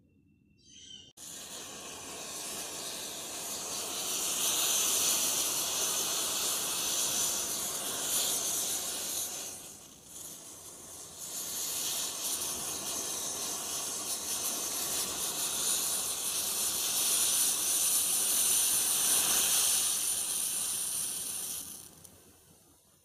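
Match heads igniting one after another in a chain reaction through a model tractor built from matchsticks, making a steady hiss. It starts suddenly about a second in, dips briefly about halfway, swells again, and fades near the end.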